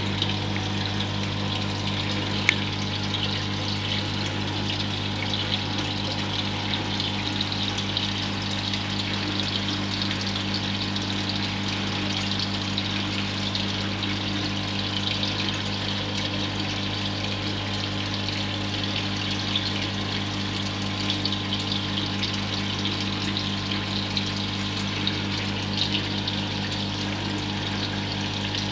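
Reef aquarium's water pump humming steadily under a constant rush of trickling water from the tank's circulation. A single sharp click sounds about two and a half seconds in.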